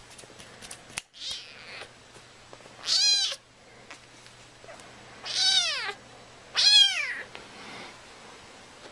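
A young calico kitten meowing: three high-pitched meows that arch and fall in pitch at the end, the last two close together, after a fainter, breathier call about a second in.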